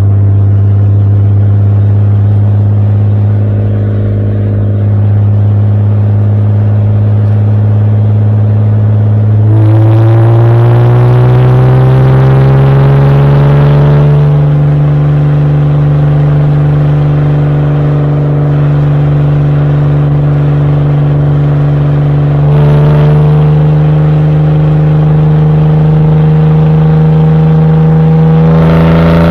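Exhaust of a 1971 Opel Commodore A GS's 2.8-litre straight-six, recorded right at its twin tailpipes while driving. It runs at a steady low note, then accelerates about ten seconds in with a rising pitch, holds steady, and pulls harder again in the last third with a louder, rising note.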